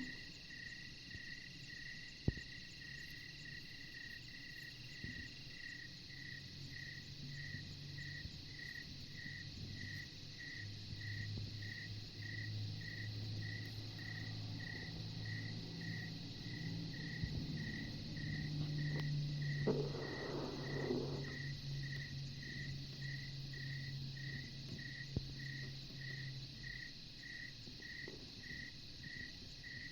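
Insects calling: a regular chirp repeating a little under twice a second over a steady high hiss. A low hum swells up and fades away through the middle.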